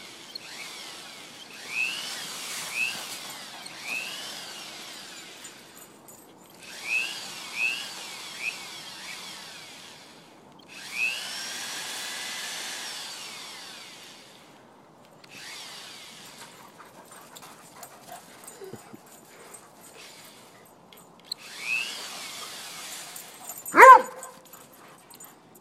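Motor of a lure machine pulling a plastic rabbit whirring in several bursts of a few seconds each, starting and stopping. Near the end a dog barks once, the loudest sound.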